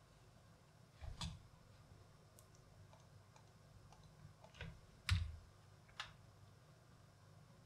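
A few separate keystrokes on a computer keyboard: two close together about a second in, then three more a little apart, the loudest about five seconds in.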